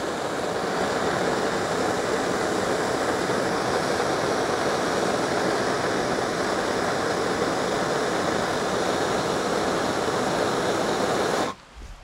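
Handheld gas blowtorch burning with a steady hiss as its flame heats the blades of pruning shears to disinfect them. The flame cuts off suddenly near the end as the torch is shut off.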